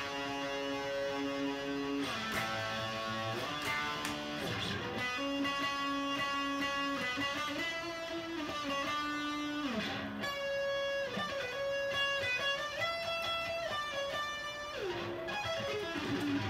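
Electric guitar playing a lead line of held notes, changing to fast repeating two-handed tapped arpeggios from about ten seconds in.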